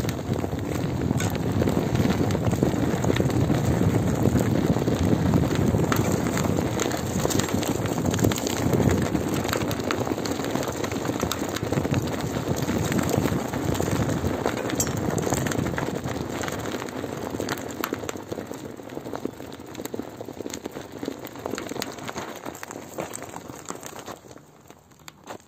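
Mountain bike rolling over gravel and dirt on a flat tyre: a continuous crunching of loose stones with scattered clicks and rattles, getting quieter over the last several seconds.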